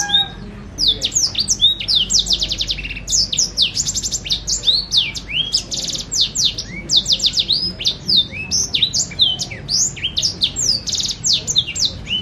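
A caged small finch singing a fast, unbroken song of sweeping whistled notes and rapid buzzy trills. It is the tutor bird whose song is used to teach young canaries.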